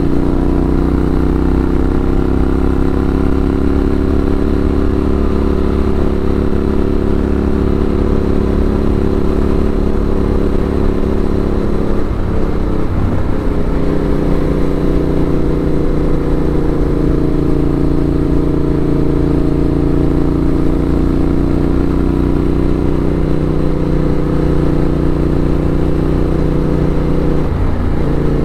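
Yamaha 689 cc parallel-twin motorcycle engine running steadily under way, with wind rush over the microphone. The engine note breaks briefly about twelve seconds in and again near the end.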